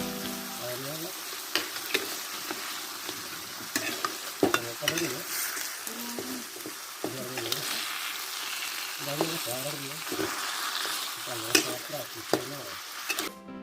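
Goat satay sizzling as it grills, a steady hiss broken by scattered sharp crackles and pops.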